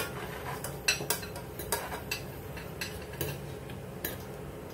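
A metal cooking utensil clinking and tapping against a pan, a sharp click every half second or so at an uneven pace.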